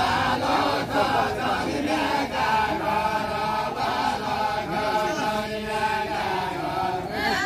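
Many voices singing a Deuda folk song together in long, chant-like lines without instruments. A new sung line starts near the end.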